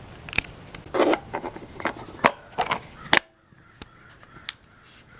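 Irregular plastic clicks, knocks and short scrapes of a portable generator's air-filter cover being unclipped and opened for inspection. The handling cuts off suddenly about three seconds in, leaving a faint background.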